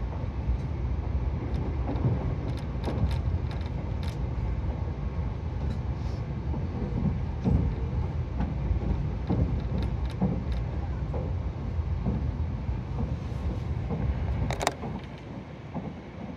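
Nankai 50000 series Rapi:t limited-express train running at speed, heard from inside the carriage: a steady low rumble of wheels on rail with scattered light clicks. A sharp click comes about fourteen seconds in, and the rumble grows quieter after it.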